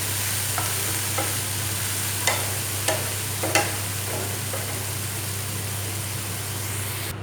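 Chopped capsicum, onion and mushrooms sizzling steadily in a frying pan as they are sautéed until soft. The stirring utensil knocks against the pan about five times in the first few seconds.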